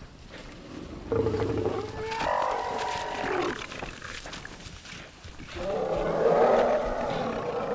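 Lions attacking elephants at night: loud, drawn-out animal cries and roars in two bouts, the first starting about a second in and lasting about two seconds, the second starting about five and a half seconds in and running on.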